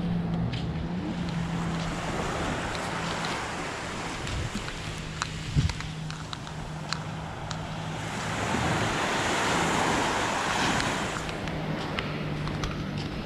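Small waves lapping and washing up a sandy beach, one wash swelling louder about two-thirds of the way through, over a steady low hum and a few light knocks.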